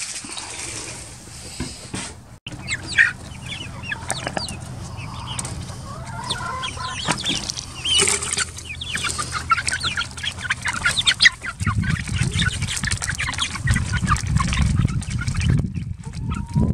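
A group of young chickens clucking and chirping excitedly as they crowd a freshly filled feeder to eat, with a low rumble joining in the last few seconds.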